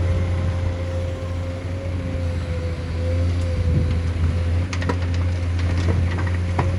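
Heavy diesel construction machine running steadily with a deep, constant hum, with a few sharp clanks in the second half.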